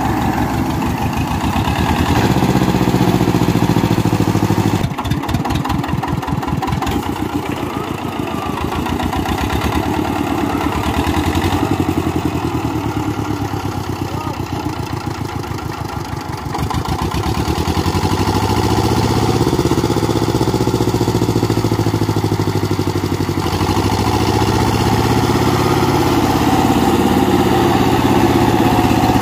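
Diesel tractor engines working hard as an Escort 435 tows a mud-stuck Eicher 364 with a loaded trolley by rope, the engine note rising and falling with the strain, most plainly in the second half.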